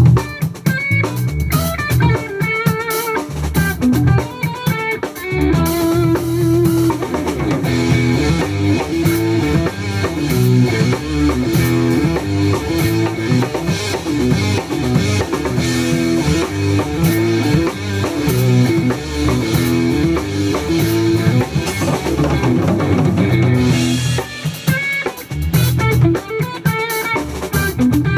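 Jazz-fusion trio of drum kit, electric bass guitar and electric guitar playing together, the guitar repeating a riff over busy drums.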